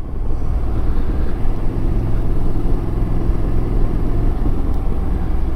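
Motorcycle engine running at a steady pitch while riding at a constant speed, under steady low wind and road noise.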